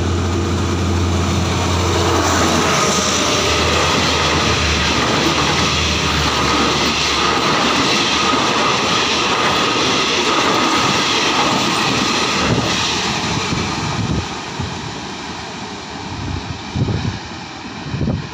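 Diesel-hauled passenger train passing close by at speed. The locomotive's engine drones low for the first few seconds, then the coaches go by with a steady rushing noise that fades over the last few seconds, with a few knocks near the end.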